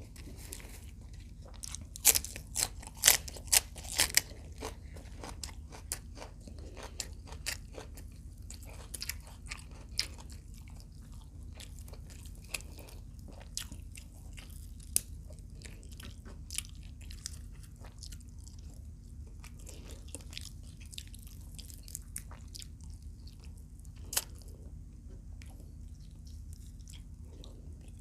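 Close-up mouth sounds of eating crisp fried adobo quail: loud crunching bites, densest about two to four seconds in, then scattered smaller crunches and chewing, with one more sharp crunch near the end.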